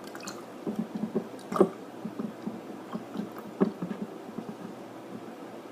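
Water sloshing in a glass mason jar as it is spun around, with a patter of small soft knocks and two louder knocks of the jar.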